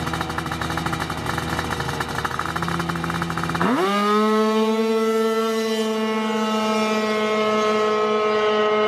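Drag-race scooter engine running rough at the start line with rapid firing pulses, then at about three and a half seconds the revs sweep up sharply and hold a high, steady whine as the scooter launches down the strip, the pitch easing slightly lower as it pulls away.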